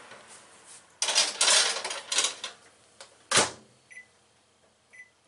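A metal mini muffin pan clattering as it is slid into an over-the-range microwave oven, then the oven door shutting with a sharp knock about three and a half seconds in. Short high keypad beeps follow as the oven's control panel is set.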